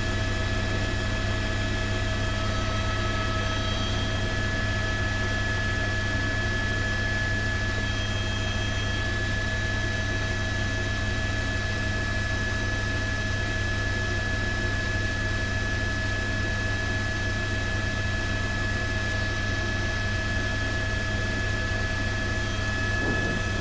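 A news helicopter's engine and rotor running in flight, heard from on board: a steady drone with several steady whining tones held over it.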